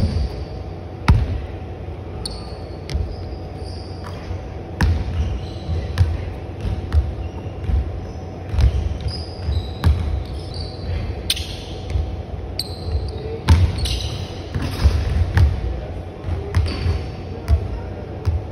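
Basketball bouncing on a hardwood gym floor: a series of separate sharp bounces, with short high sneaker squeaks and running steps in between, in a large echoing hall.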